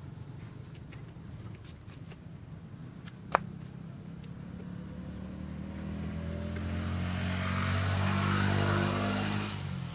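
A motor engine running and passing, its hum and hiss growing louder from about halfway and easing off just before the end. A single sharp click comes about a third of the way in.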